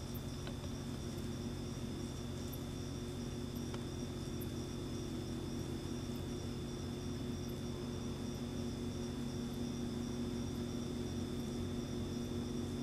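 Crickets trilling steadily in the night, a continuous high chorus over a steady low hum.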